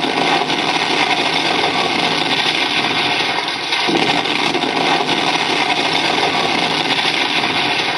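Recorded tank-destroyed sound effect played through a small loudspeaker by a DIY RC tank sound board: a steady, dense rushing noise of a burning fire.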